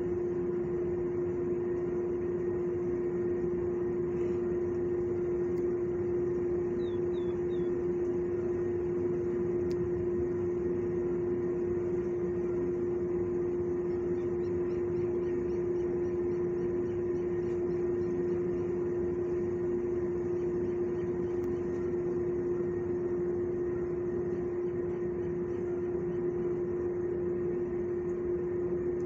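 Steady mechanical drone of building ventilation equipment, one strong humming tone that never changes. A few faint high chirps come about seven seconds in.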